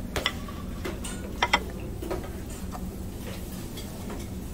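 Light clicks and clinks of metal serving tongs and dishes, a few scattered strikes with a quick double click about a second and a half in, over a steady low room hum.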